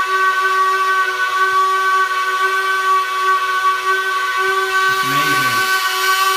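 Dremel rotary tool running at a steady high speed, spinning a dismantled washing-machine pump motor: a constant whine made of several steady pitched tones.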